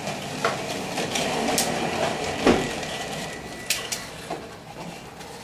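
Plastic wheels of a toddler's ride-on toy rolling over a tiled floor, a steady rattling rumble with a few clicks and one louder knock about two and a half seconds in.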